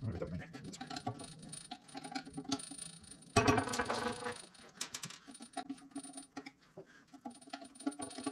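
Screwdriver prying steel balls out of an old ball bearing held in a bench vise: repeated metal clinks and scrapes with the steel ringing after them, and a louder clatter about three and a half seconds in.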